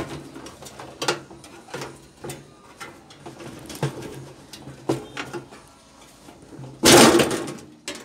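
Screws being worked out of a microwave oven's sheet-metal case: a scattered run of small metallic clicks and knocks, then one loud, noisy clatter lasting under a second near the end as the case is handled.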